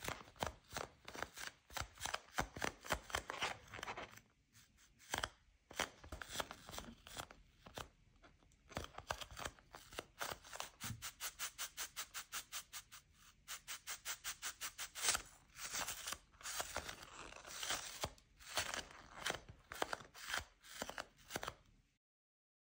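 Nano tape bubble of clear gel double-sided tape being squeezed and patted in the hands: quick sticky crackling and clicking as the tacky surface pulls away from fingers and palms, at times in even runs of about five clicks a second.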